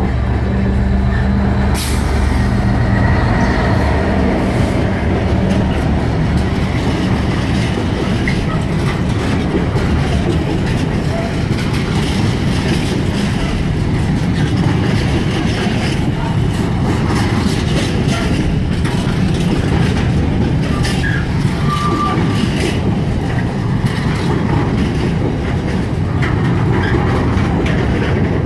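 A British Rail Class 66 diesel locomotive, an EMD two-stroke V12, passes close by with a steady low engine drone in the first few seconds. Its container wagons then roll past with a continuous wheel-on-rail rumble and many clicks as the wheels cross rail joints.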